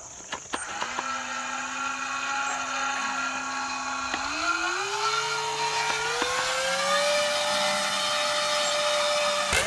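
Small electric motors driving the three propellers of a homemade model airboat whine as they spin up. The pitch steps up about four seconds in and again about two seconds later, then holds high, with a few clicks near the start.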